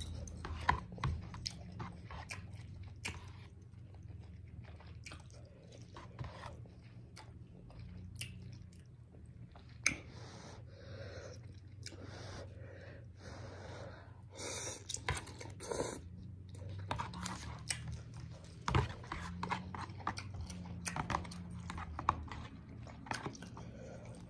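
Close-miked chewing and slurping of instant noodles, with small mouth clicks and smacks throughout and a longer slurp about fifteen seconds in.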